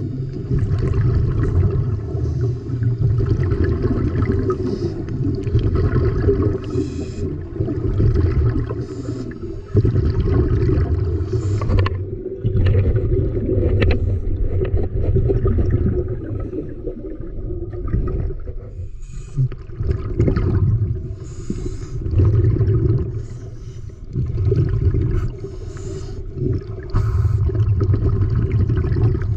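Underwater sound heard through an action camera's waterproof housing: a muffled low rumble of moving water that swells and fades every couple of seconds, with short hissing bursts of scuba bubbles.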